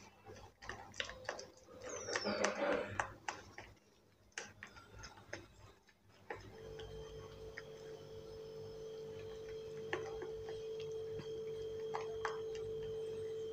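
A hand beating besan (gram flour) batter in a bowl, with wet squelching and clicking strokes through the first half. About six seconds in, a steady humming tone comes in and holds under the faint mixing sounds.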